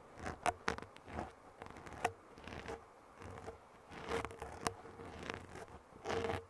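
Close-miked ASMR trigger sounds: irregular sharp clicks and taps with short scratchy, rustling scrapes between them, a longer scrape about four seconds in and another near the end.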